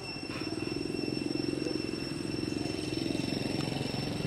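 An engine running steadily, a rapid low throbbing pulse, with a faint steady high-pitched tone above it.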